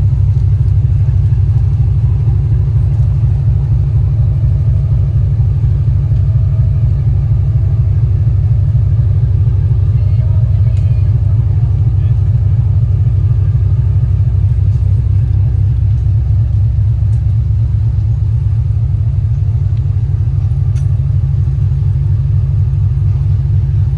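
Engines of a 47 m Heesen motor yacht idling while she is moored stern-to, a loud, steady deep rumble that does not change.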